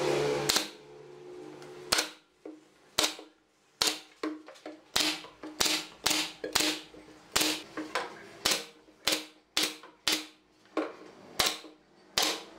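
Pneumatic brad nailer firing repeatedly, a series of sharp pops roughly one or two a second as it drives brads through the wooden panels into the chair frame. A steady mechanical hum cuts off about half a second in.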